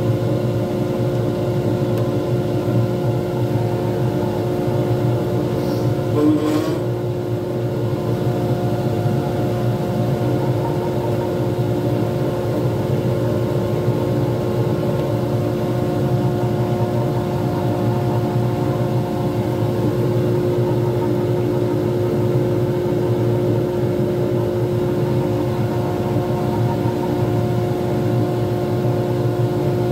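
Lathe motor running at a steady speed, spinning a resin pen blank between centres: a steady hum with a fixed whine on top. A brief extra noise about six seconds in.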